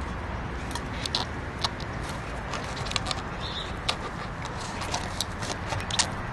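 Bichon Frise puppy chewing and gnawing on a rubber clog: irregular sharp little clicks and squeaks from teeth on the rubber, over a steady low background noise.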